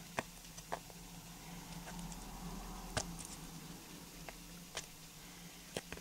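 Scattered small clicks and taps, about six of them, as fingers handle and press on wet test samples bonded to stainless plate, over a faint steady hum.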